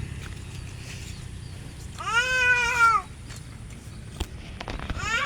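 A cat meowing: one long meow, rising and then falling in pitch, about two seconds in, and the start of another near the end.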